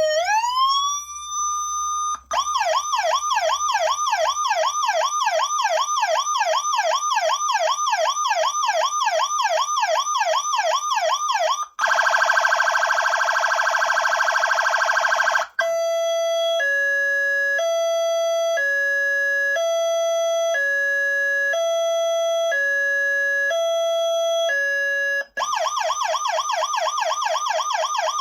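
Whelen WSSC30 siren speaker with built-in amplifier stepping through its tones: a wail climbing and then holding, a fast yelp warbling about four times a second, a harsh buzzing horn tone for a few seconds, a two-tone hi-lo alternating about once a second, and the fast yelp again near the end.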